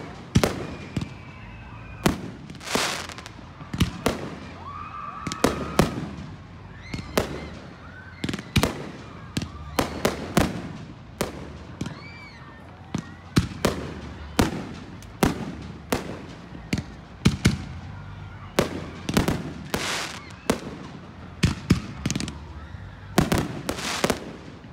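Aerial fireworks shells bursting in a continuous barrage, sharp bangs about one or two a second, each trailing off in a short echo.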